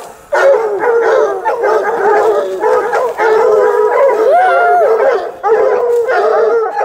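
Several hounds baying and howling together in long, overlapping calls at a mountain lion they have bayed up in the rocks.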